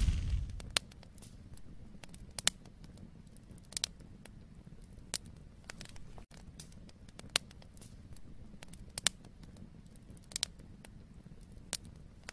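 End-screen sound effect: a loud whoosh fades away in the first second, leaving a faint low rumble with sparse sharp crackles about once a second.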